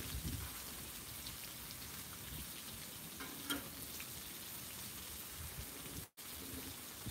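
Bacon strips and seasoned burger patties sizzling steadily on a Blackstone flat-top griddle, a continuous crackling hiss, with a faint tick about halfway through.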